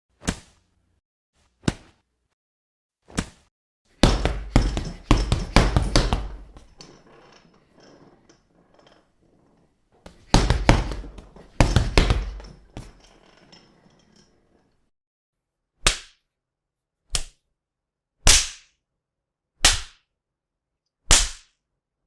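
Punch hit sound effects: a few single blows, then two rapid flurries of many punches, then single punches again about a second and a half apart.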